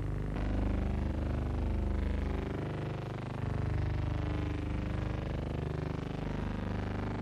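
A steady low buzzing hum with many overtones and a rough, rapid flutter. This is the kind of noise heard on the sound track of a transferred silent-era newsreel.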